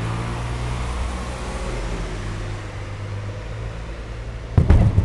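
Aerial fireworks display: a steady low rumble, then a loud, sharp boom near the end as a shell bursts.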